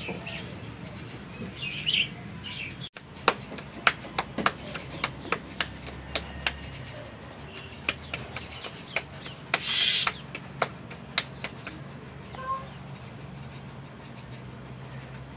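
Roti dough being slapped flat between bare palms: a run of sharp pats, about two a second, starting about three seconds in and stopping near the end. Birds chirp faintly.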